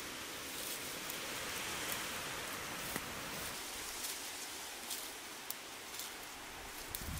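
Close rustling of leaves and stems and crumbling soil as hands dig a plant root out of the ground, a steady hiss with scattered small crackles.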